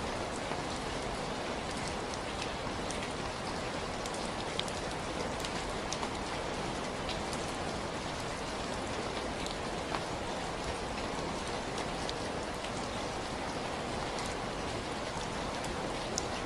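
Steady rainfall: an even hiss of rain with scattered sharp drips and drop taps on a surface.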